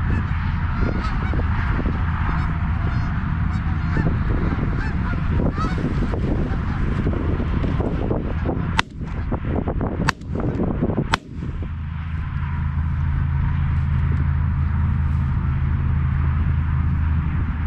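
A flock of Canada geese honking as it comes in over the decoys, then three shotgun shots about a second apart, a little before the middle.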